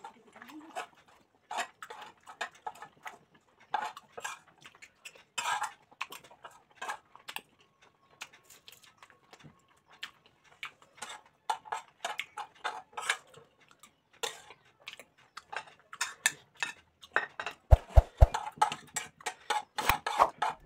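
Eating sounds: a metal spoon scraping and clinking on a ceramic plate, with chewing, as irregular short clicks and scrapes that get busier in the second half. A few dull knocks come near the end.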